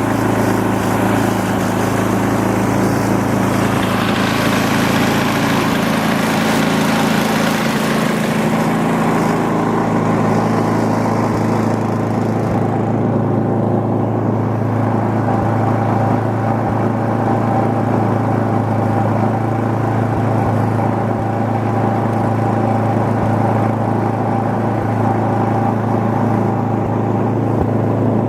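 A small engine running steadily at constant speed. For several seconds near the start a rushing hiss rides over it.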